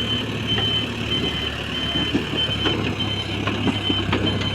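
JCB 3DX backhoe loader's diesel engine running steadily, with its high-pitched warning beeper sounding in short repeated beeps. A few sharp knocks come in the second half.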